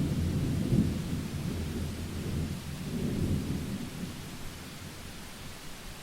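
Thunder rumbling low and deep, loudest in the first second and swelling again about three seconds in, then dying away into a steady hiss.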